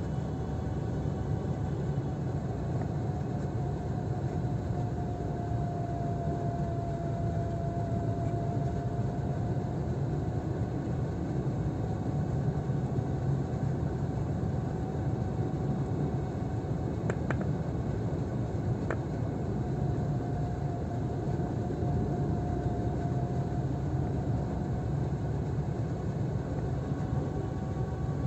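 A car driving steadily on an open road, heard from inside the cabin: constant engine and tyre rumble with a faint steady whine. Two small clicks come about two-thirds of the way through.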